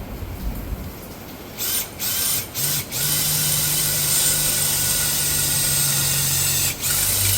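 Handheld power drill: the trigger is pulsed three times, then the motor runs steadily for about four seconds, stops briefly and starts again near the end.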